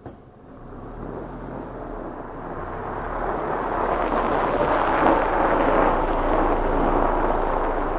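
Snowplow truck working, a steady rushing noise with a low hum that grows louder over the first five seconds and then holds.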